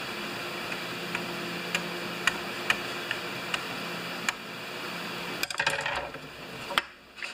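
Light clicks and taps of a chainsaw carburetor and its linkage being handled and seated in its housing: a few single ticks at first, then a quick clatter of clicks about five and a half seconds in. A steady background hum runs under it and drops away near the end.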